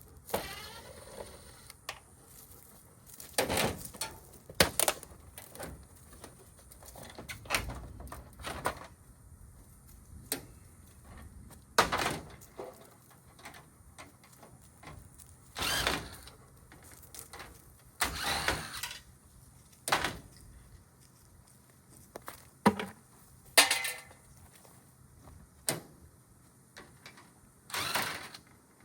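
Irregular metal knocks, clanks and short scrapes of appliance parts being pried and pulled apart while a washer and dryer are stripped for scrap.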